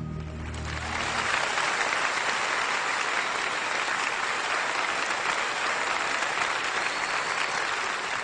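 The last held chord of the choir and orchestra dies away in the first second as the concert audience breaks into steady, sustained applause.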